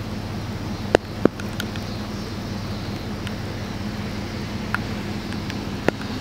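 Steady low hum of an idling vehicle engine under a haze of wind noise, with a few sharp clicks: two about a second in and two more later on.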